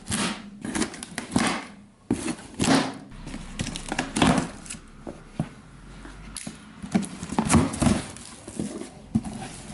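Irregular knocks and rustling as a cardboard box of suspension-kit parts and its packaging are opened and handled.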